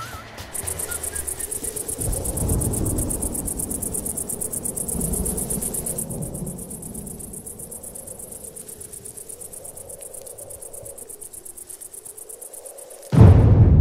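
Crickets chirring in a rapid, even high-pitched pulse over a low rumble of outdoor ambience. The chirring cuts off abruptly near the end, where a much louder, low music hit begins.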